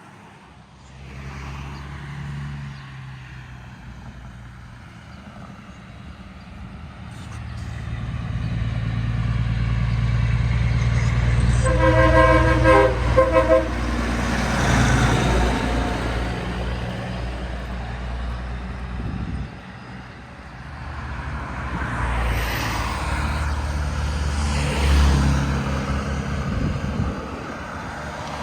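Diesel locomotive rumble building as the train approaches. About twelve seconds in comes a short blast of its multi-note air horn, a chord of several steady tones lasting about a second and a half.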